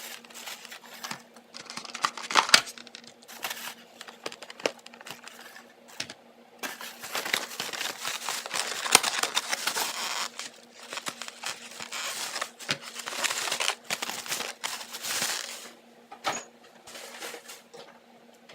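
Irregular rustling and crinkling with scattered sharp clicks and knocks, the sound of things being handled and moved about.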